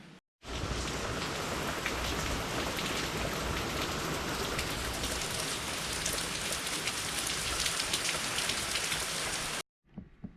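Steady rain falling, a dense hiss of many drops striking a surface. It begins abruptly just after the start and cuts off sharply near the end.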